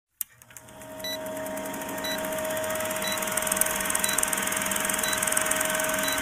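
Old film projector sound effect for a countdown leader: a steady whirring clatter with hiss and a constant hum, and a short tick about once a second.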